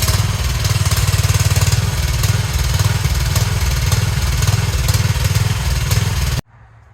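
AGT mini excavator's small engine running steadily with a fast low chug, with occasional sharp clicks over it; the sound cuts off suddenly near the end.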